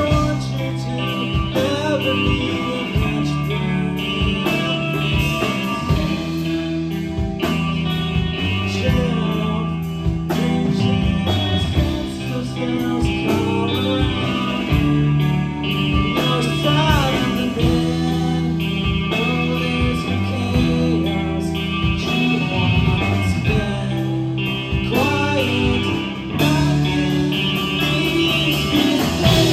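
Live alternative rock band playing: a male singer sings over electric guitar, bass guitar and drums.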